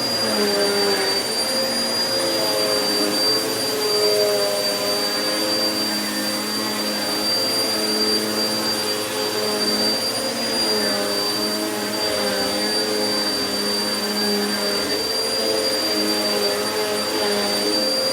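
Vacuum cleaner running steadily on carpet. It gives a constant high whine over a motor hum whose pitch wavers a little as the load changes.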